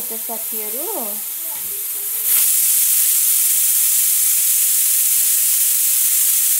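Hawkins pressure cooker's weighted valve venting steam with a loud, steady hiss that starts suddenly about two seconds in. This is the cooker's 'whistle': it sounds when full pressure is reached, and it is counted, three or four times, to time the cooking of the meat.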